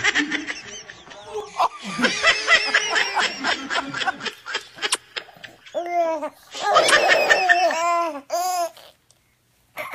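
Baby laughing in quick repeated bursts, then a few longer, higher baby calls about six seconds in, breaking off shortly before the end.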